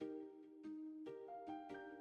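Soft background music: a melody of single pitched notes, each starting sharply, about five in two seconds.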